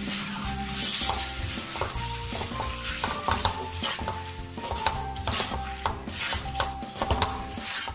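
Boiled noodles being stirred and tossed into sauce in a metal pan, the spoon scraping and knocking against the pan several times a second, with sizzling.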